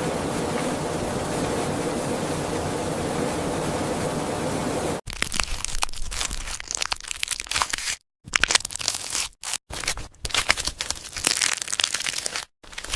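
A steady rushing noise, then an abrupt change about five seconds in to irregular crackling and crunching, broken by several brief total silences: sound effects of a locust nymph breaking out of its egg pod.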